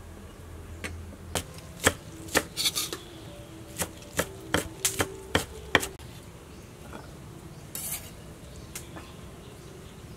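Kitchen knife chopping on a wooden cutting board: about a dozen sharp, irregular chops in the first six seconds, a few followed by a brief ringing note.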